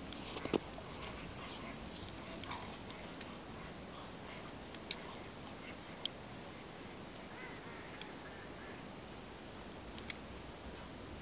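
Geese and ducks calling in the distance over a steady background. Several sharp clicks, some in quick pairs, stand out as the loudest sounds in the middle and near the end.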